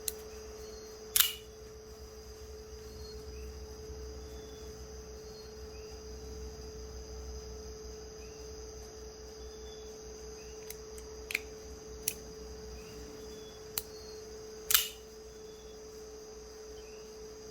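Sharp mechanical clicks of an assisted folding knife being worked open and shut: a loud snap about a second in and another near the end, with several lighter clicks between them. A steady electrical hum runs underneath.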